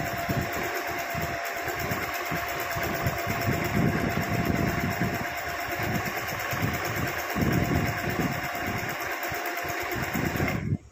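Singer Simple electric sewing machine running steadily, stitching free-motion embroidery on hooped cloth, with a constant motor whine under the needle's rapid clatter. It stops abruptly right at the end.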